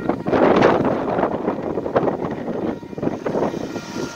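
Wind buffeting the microphone in uneven gusts, with vehicle noise behind it as traffic passes over the level crossing.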